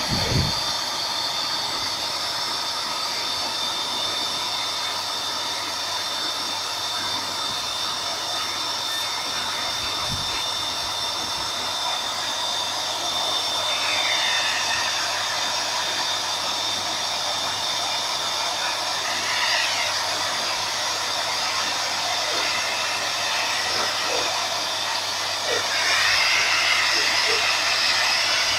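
Orange pet grooming blower (dog dryer) running steadily: a constant rushing air noise with a steady high whine.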